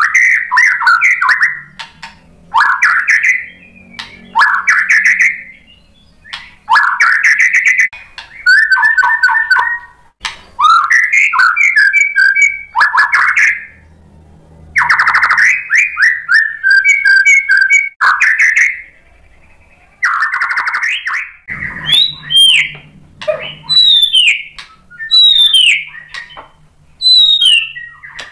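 A white-rumped shama (murai batu) singing in loud, varied whistled phrases broken by short pauses, with fast chattering trills in the middle. Near the end comes a run of high down-slurred whistles, about one a second.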